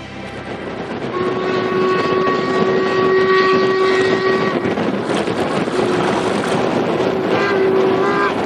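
A paddle steamer's steam whistle blows a long blast from about a second in, over a steady rushing background. After a short break it sounds again, with two brief blasts that slide up in pitch near the end.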